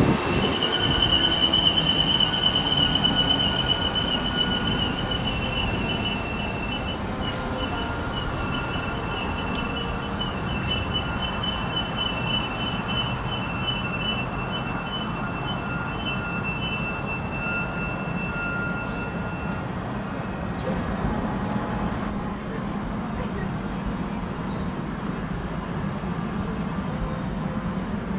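Passenger train running, its wheels squealing on the rails in a high, wavering squeal over a steady rumble. The squeal fades out about twenty seconds in, leaving only the running rumble.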